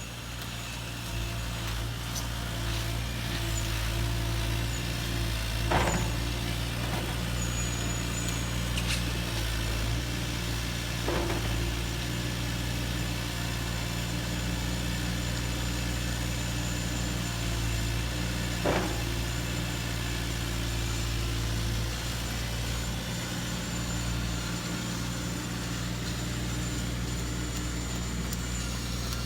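Radio-controlled model dump truck running, a steady low engine-like hum with a thin high electric whine over it. Three short sharp clicks stand out, about 6, 11 and 19 seconds in.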